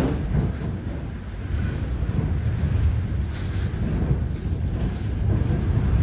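Gale-force wind buffeting the house: a deep, unbroken rumble that swells and eases in gusts.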